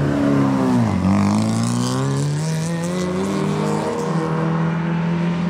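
A racing car's engine running hard on the circuit. Its note drops sharply about a second in, then climbs steadily for a few seconds before levelling off.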